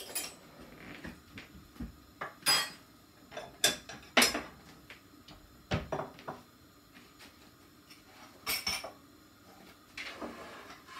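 Plates, bowls and cutlery clinking and knocking against each other and the counter as serving dishes are set out, in scattered sharp strikes, the loudest about four seconds in.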